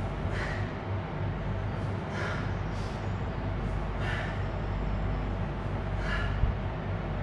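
A man breathing out sharply four times, about two seconds apart, once with each drive of a single-arm dumbbell push press, over a steady low hum. A brief low thump comes after the last breath.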